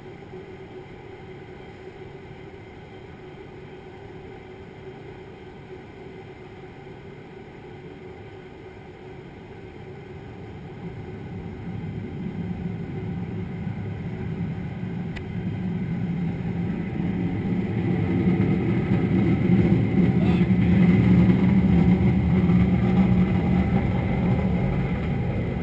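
Jet engine noise heard from inside an aircraft cabin: a steady low rumble that builds from about ten seconds in to a loud, deep roar, then eases a little near the end.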